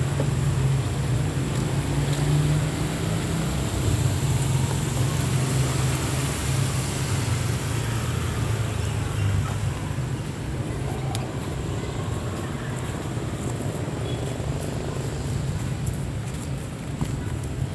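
Street traffic: a steady low hum of vehicle engines with a hiss of road noise, easing off about halfway through.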